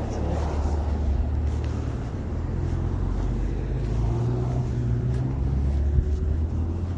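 Steady low rumble of a car running, with road noise.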